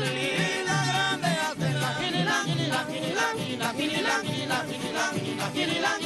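Golpe larense: men singing together over strummed small Venezuelan guitars (cuatros and a cinco larense) with a small hand drum keeping a steady beat.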